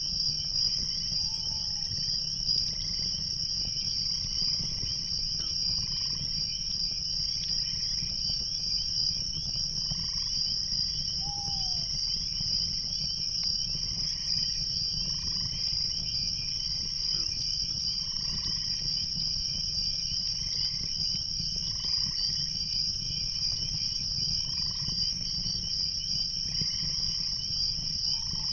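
Crickets chirring steadily in a dense night chorus, with a short high chirp repeating about every two seconds and a steady low rush underneath.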